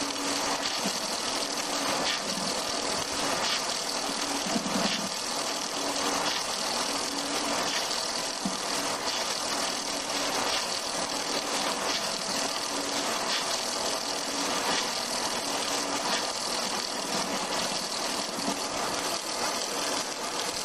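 Log-turning wood lathe running, its motor spinning a log against the cutter: a steady mechanical whir with a continuous hiss of wood being shaved.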